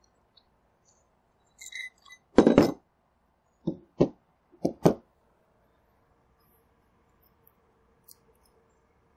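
Telescope parts being handled and set down on a folding table during disassembly: a few short clinks and knocks, the loudest a brief clatter about two and a half seconds in, followed by two pairs of knocks.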